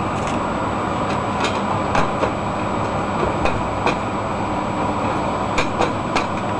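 Gas cooking-stove burner running with a steady rushing hiss, with a few scattered light clicks.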